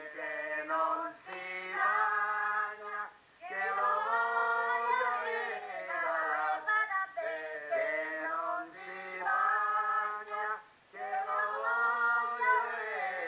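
Voices singing a Calabrian folk song in dialect, in short phrases with brief breaks between them.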